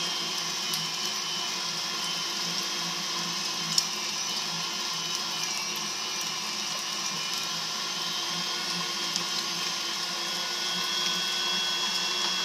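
KitchenAid stand mixer running its food grinder attachment, a steady motor hum as the auger grinds chunks of beef. There is one sharp click about four seconds in.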